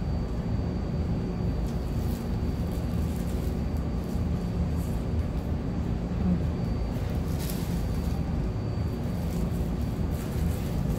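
Steady low rumbling background noise with a faint constant high whine, and a few brief faint crackles about two and seven and a half seconds in.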